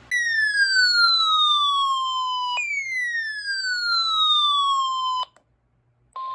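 Two loud, falling electronic siren-like tones, each sliding down for about two and a half seconds. They stop abruptly, and after a second of silence the steady single-pitch NOAA Weather Radio 1050 Hz warning alarm tone begins near the end, the tone that signals an alert message is about to follow.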